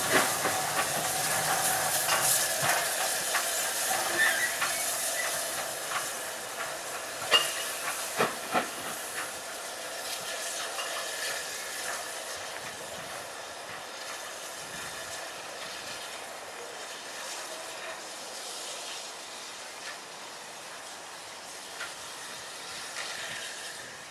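Steam locomotive running slowly with a steady hiss of escaping steam, and a few sharp clanks of wheels over rail joints about seven to nine seconds in. The sound grows fainter as the locomotive draws away.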